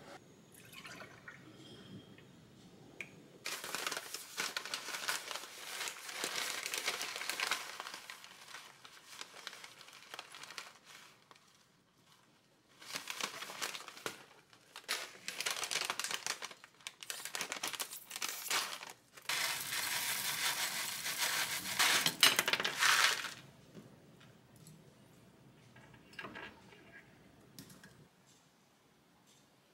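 Milk poured into a glass, then a cereal bag crinkling and dry chocolate cereal pouring into the glass, in several spells of rustling, the loudest near the end.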